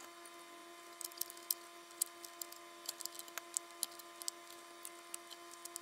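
Faint, scattered clicks and taps of a screwdriver and small metal and plastic parts as a toy train tender's wheel truck is refitted by hand, over a steady faint hum.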